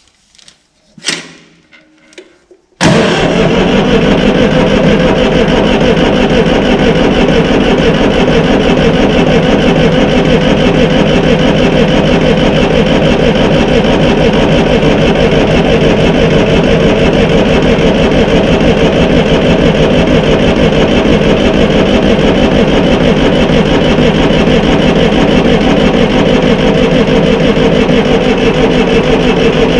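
Massey Ferguson 35X tractor's Perkins three-cylinder diesel being turned over on the starter motor with the stop cable pulled out, so it cranks without firing. It starts abruptly about three seconds in and cranks steadily for a long stretch, filling the new oil filter and building oil pressure.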